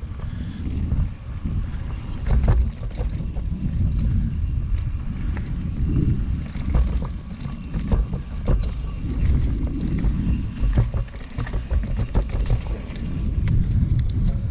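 Mountain bike ridden fast along a dirt singletrack trail: a fluctuating low rumble of wind on the microphone and tyres on the ground, with scattered sharp clicks and rattles from the bike.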